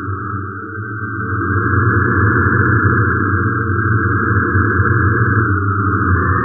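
Drones from the DIN Is Noise software synthesizer with their voice set to noise: a continuous synthesized hiss in two bands, one high and one low, over a steady low hum. It grows louder about a second and a half in.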